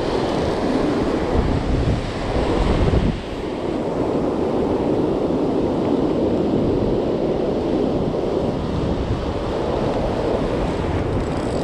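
Ocean surf breaking and washing up a beach, a steady rush, with wind buffeting the microphone. It eases briefly about three seconds in.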